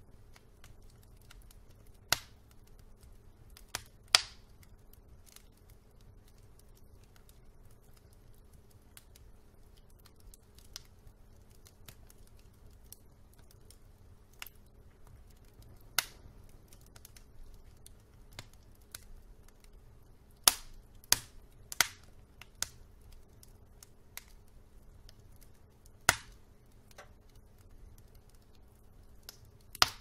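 Wood logs burning in an open fireplace, crackling with sharp, irregular pops, a few much louder than the rest, over a faint low rumble.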